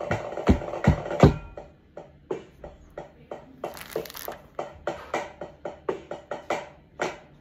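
Pipe band drum corps playing a fanfare: heavy, ringing drum strokes for about the first second, then a quieter run of fast, light strokes.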